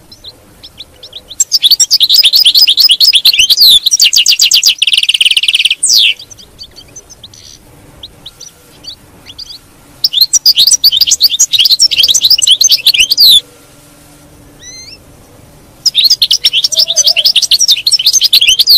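European goldfinch singing: three bursts of fast, high twittering song, each a few seconds long, with scattered single call notes in the gaps between them. The first burst ends in a buzzy trill.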